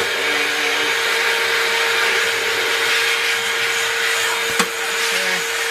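Vacuum cleaner running steadily with a constant motor whine as it sucks dust and debris off a refrigerator's condenser grille; a single sharp knock about four and a half seconds in.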